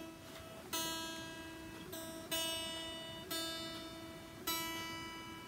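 An electric guitar's high E string plucked about once a second, each note ringing and dying away, while it is tuned by ear to a clip-on tuner with the tuning peg being turned toward pitch.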